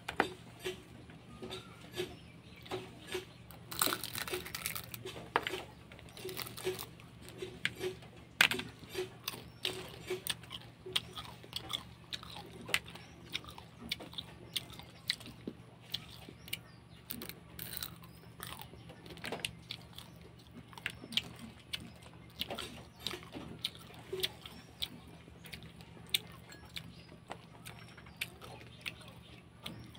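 Close-up eating of whole cooked crab in curry: crab shell and legs cracking and crunching as they are bitten and chewed, in many short sharp snaps scattered through, busiest about four seconds in.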